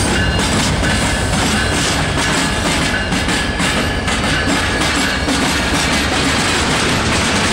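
Union Pacific intermodal train rolling past at close range: steady wheel-on-rail noise with clicks from the wheels crossing rail joints, and a thin high wheel squeal that fades out about two seconds in.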